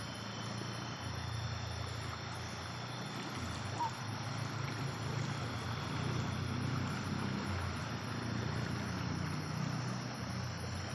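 Night ambience on a rocky riverbank: a steady rush of noise with a high, evenly pulsing trill of night insects, and a low rumble of wind on the microphone that swells and fades.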